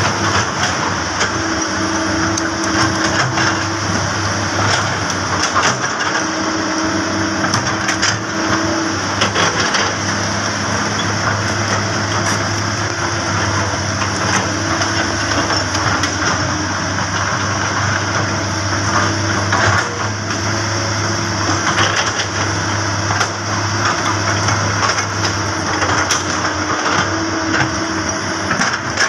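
Komatsu PC200 hydraulic excavator's diesel engine running steadily as the machine works, with a tone that comes and goes every few seconds and occasional short knocks.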